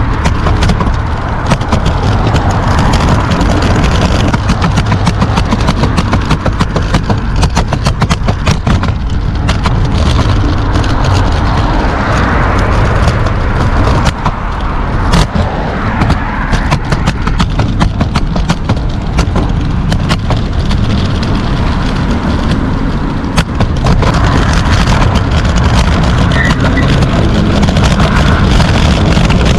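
Scooter ride in motion: steady, loud rolling and rushing noise with frequent short clicks and knocks as the wheels run over the pavement.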